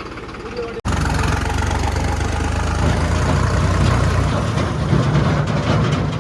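Tractor's diesel engine running with a steady low rumble. Just under a second in the sound cuts off abruptly, and the engine comes back louder.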